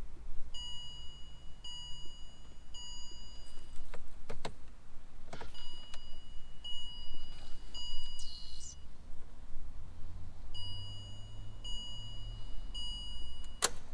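Car's electronic warning chime sounding a steady high tone in three runs of three long beeps, each about a second. Sharp clicks come between the runs, and a loud click sounds just before the end.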